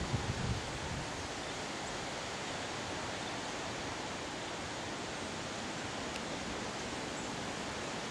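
Strong wind rushing steadily, with a few low gusts buffeting the microphone in the first half-second.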